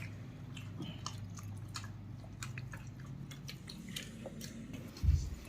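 Close-up eating sounds of someone chewing chicken: scattered small wet clicks and smacks over a low steady hum, with one dull thump near the end.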